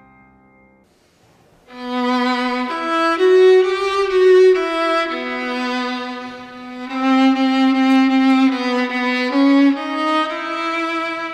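Solo violin playing a melody of held notes, one note at a time, entering about a second and a half in after the last piano notes die away.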